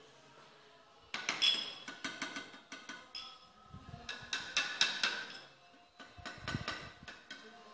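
Porcelain tile pieces clicking and clinking with a short ringing as they are tapped and set into place. The taps come in four short bursts, about one, two, four and six and a half seconds in.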